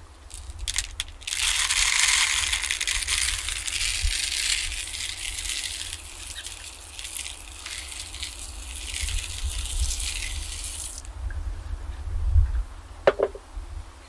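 Sunflower seeds poured from a container into a plastic bird feeder, a continuous stream of seeds rattling onto plastic and onto each other. It begins a little over a second in, runs for about ten seconds and stops abruptly.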